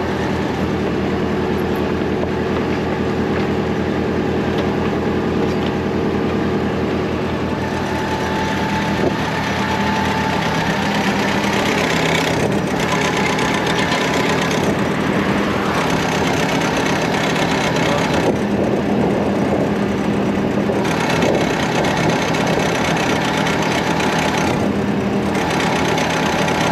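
Engine of a sewer jetter truck running steadily, with a hiss over it that cuts out briefly several times in the second half.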